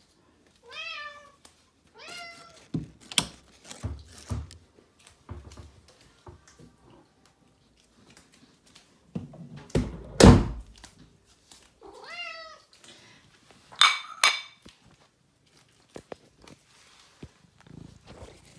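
A cat meowing several times in short calls that rise and then fall. A heavy thump about ten seconds in is the loudest sound, with a few softer knocks around it.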